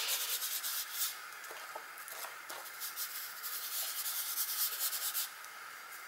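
Paint being rubbed and spread across a gessoed paper journal page by hand: a soft, scratchy rubbing that comes and goes with the strokes, with a few light ticks.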